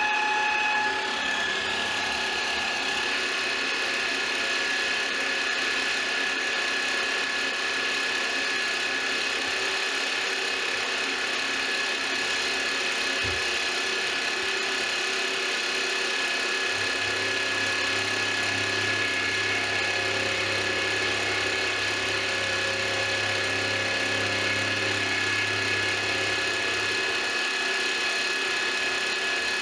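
Milling machine running as an end mill cuts the end of an aluminium extrusion: a steady spindle whine over the noise of the cut. A lower hum joins from a little past the middle and drops away near the end.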